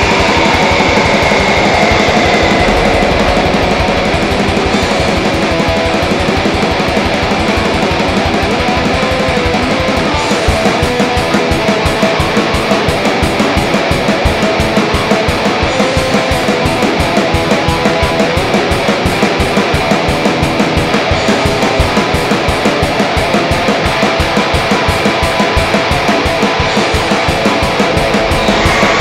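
Raw black metal: dense, heavily distorted electric guitar over a drum kit, with a lo-fi, buzzing recording. About ten seconds in, the drums change to fast, evenly spaced hits that carry on under the guitar.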